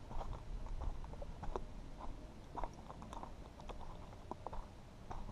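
Footsteps on a sandy, rocky dirt trail: irregular short crunches of grit underfoot, over a steady low rumble.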